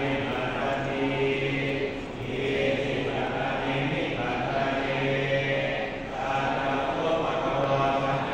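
Thai Buddhist monks chanting Pali verses together in a low, steady monotone: a pluk sek consecration chant over amulets. The chant moves in long held phrases with short pauses about two and six seconds in.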